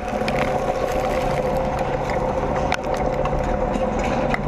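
A tank's engine running, heard from on top of the tank: a steady low rumble with a constant droning whine over it, and scattered small clicks and crackles.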